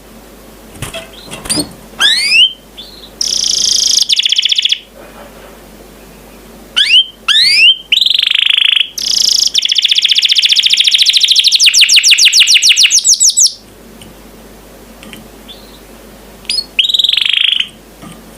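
Domestic canary singing in phrases of quick rising whistled notes and fast trills, with a long rapid trill about ten seconds in and a short pause before a last phrase near the end.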